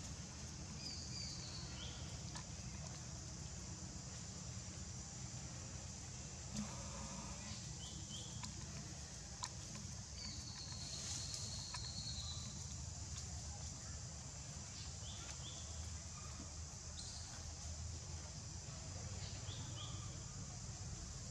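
Outdoor tree-canopy ambience: a steady high insect hum with short, high chirps or squeaks every few seconds and one longer, level whistle about eleven seconds in, over a low rumble.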